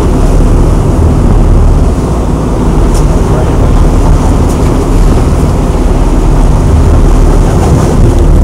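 Boat's engine running with a steady low drone, mixed with wind across the microphone.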